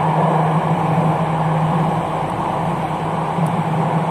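Interior noise of a Jakarta MRT train car under way: a steady rumble of wheels on rail with a steady low hum underneath.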